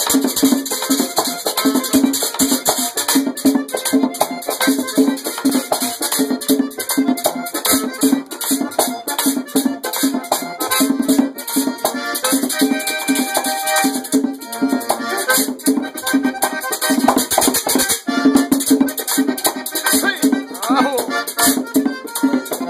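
Diatonic button accordion playing a fast merengue típico tune over a rattling percussion beat.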